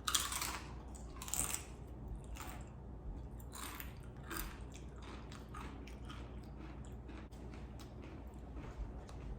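Tortilla chips crunched between the teeth close to the microphone: a few loud bites in the first four or five seconds, then steady chewing with smaller crunches.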